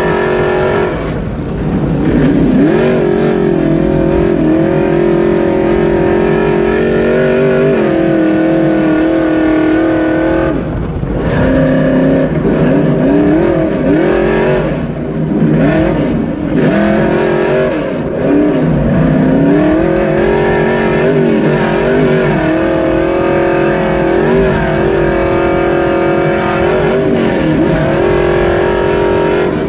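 Dirt-track super stock race truck's engine heard from inside the cab, run hard at steady high revs, with the revs dropping and climbing again several times.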